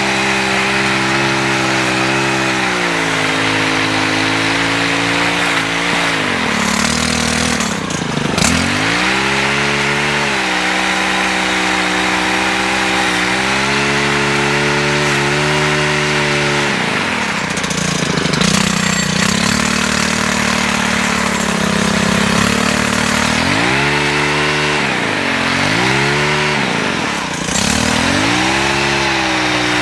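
Stihl HT103 gas pole saw's small 4-MIX engine running at high speed while cutting branches. Its pitch dips sharply and recovers about four times.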